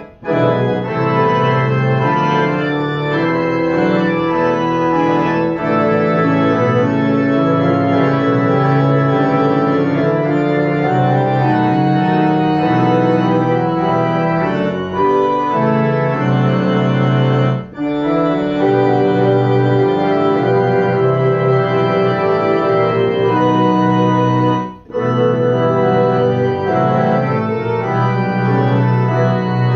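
Digital piano set to an organ voice, playing held minor-key chords of an organ piece in E minor, with stacked notes sustained and changing chord by chord. The sound drops out briefly twice, between phrases, in the second half.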